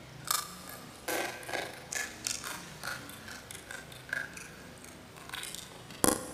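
Boiled crayfish shells being cracked and peeled by hand and eaten, heard as a string of short, sharp crackles and mouth sounds, with one sharper crack near the end.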